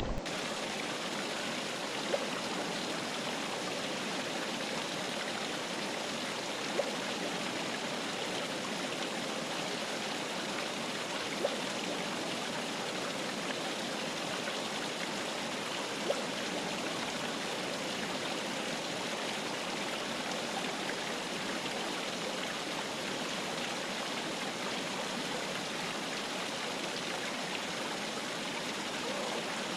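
River water flowing with a steady, even rush. Four brief louder blips stand out, about four to five seconds apart.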